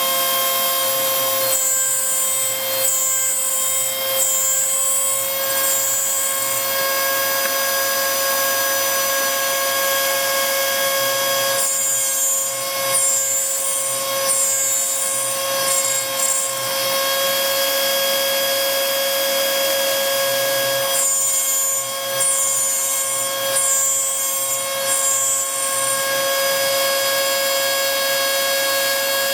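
Homemade CNC router milling a printed circuit board: the spindle runs steadily with a carbide bit cutting. A high-pitched whine comes and goes in three clusters of short pulses, about ten seconds apart.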